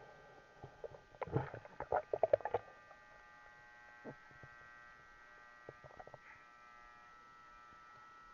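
Underwater recording from a submerged camera: a steady electronic hum with a quick run of clicks and knocks about one to two and a half seconds in, and a few single knocks later.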